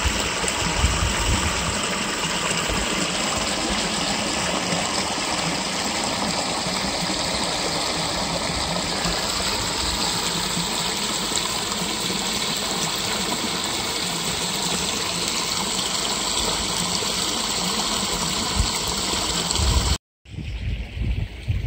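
Stream water pouring over a low stone-and-concrete weir spillway, a steady rushing splash at close range. About twenty seconds in it cuts off abruptly and gives way to wind buffeting the microphone.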